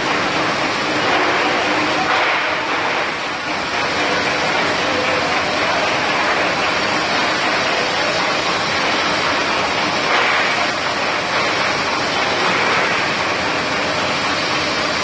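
Continuous chip-frying line running: a steady rushing noise of the fryer and its machinery, with a faint steady hum underneath.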